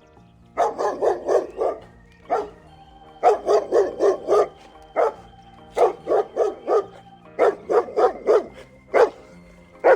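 Dog barking repeatedly in quick runs of four to six barks, with single barks between the runs, over steady background music.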